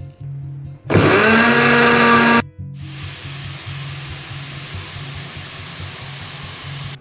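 Electric blender running at high speed for about a second and a half, grinding coriander seeds, garlic and shallots; this is the loudest sound. About a second later oil starts to sizzle steadily in a pan with bay leaves and spice paste. Background music with a low repeating bass line plays throughout.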